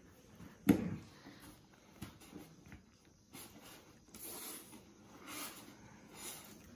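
Faint rustling and scuffing as a toddler climbs onto a polystyrene ice box, with one brief louder sound shortly after the start.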